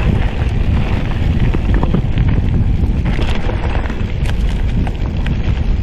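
Mountain bike descending a dirt singletrack: wind buffeting the chest-mounted camera's microphone over a steady rumble of tyres on the trail, with scattered sharp clicks and rattles from the bike over bumps.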